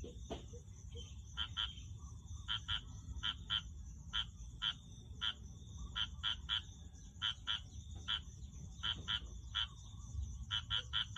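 Small frogs calling: short croaks repeated in quick runs of two or three, about every second, over a steady high-pitched whine.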